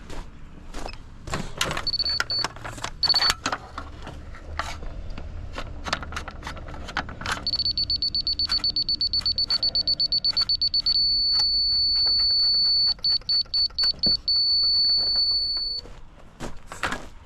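Laser level receiver beeping on a grade rod: a high electronic tone in short beeps, then a fast run of beeps, then a steady tone broken once by a few more beeps. The steady tone is the receiver's on-grade signal. Clicks and knocks come from the rod being handled.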